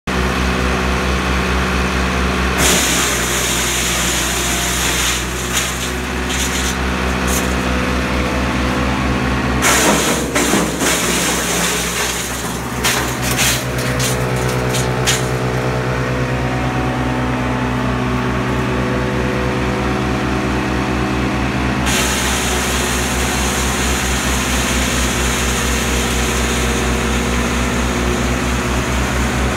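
Caravaggi BIO 190T PTO-driven chipper-shredder running steadily off a tractor engine. Branches fed into it are chipped in spells of loud crackling and snapping about three seconds in, around ten seconds and again a few seconds later. From about two-thirds of the way through, a steady hiss of shredded material runs under the engine.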